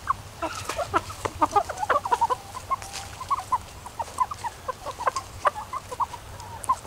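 A flock of asil chickens clucking, many short calls from several birds overlapping.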